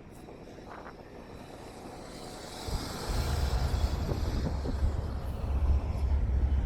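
Road traffic going by on a busy street. From about three seconds in, wind buffets the microphone as a loud, uneven low rumble.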